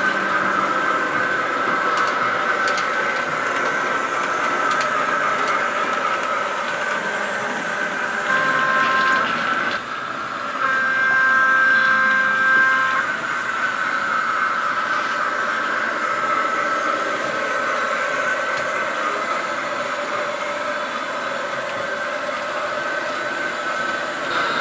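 Model trains running with a steady hum. A model train horn sounds twice, first briefly about a third of the way in, then a longer multi-tone blast a few seconds later.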